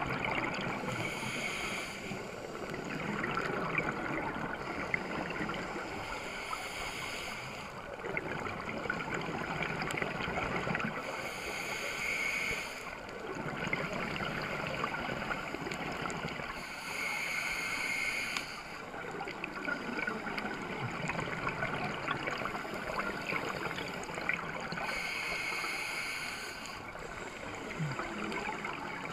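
Scuba regulator breathing underwater: about five hissing breaths roughly five to six seconds apart, over a steady rush of bubbles and water noise.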